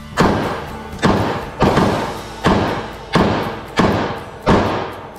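Springfield Armory 1911 pistol in .45 ACP firing seven shots at a steady pace, about one every 0.7 seconds, each shot ringing out briefly in the indoor range.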